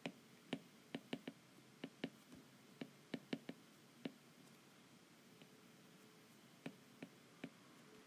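Faint, irregular clicks of a stylus tip tapping the glass screen of a tablet during handwriting. They come in a quick cluster over the first four seconds; after a pause of about two seconds, three more follow.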